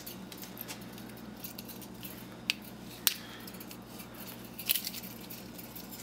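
Sharp clicks and light metallic clinks of wire cutters and small metal parts being handled while aluminum wire is cut and pulled from a hair dryer's heating element. There are a few distinct snips, about two and a half seconds and three seconds in, and a small cluster near the end.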